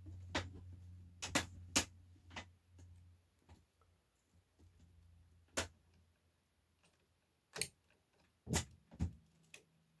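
Sharp plastic clicks and taps, about ten scattered through, from handling the louver swing-motor housing and connector of a Mitsubishi MSZ-SV28T-W wall-mounted air-conditioner indoor unit. A low steady hum runs under the first few seconds and then fades.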